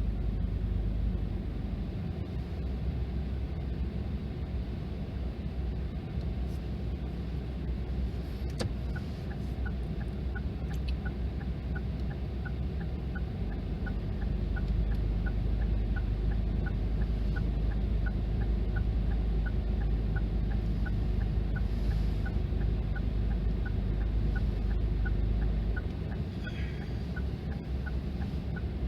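Railroad crossing alarm ringing faintly in a steady run of dings, a little under two a second, starting about nine seconds in, under a heavier low rumble.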